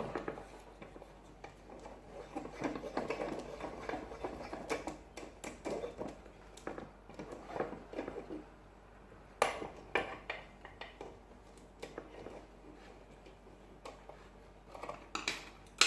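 Small metal objects clinking and rattling as they are handled on a tabletop, with scattered light clicks and a few sharper ones past the middle.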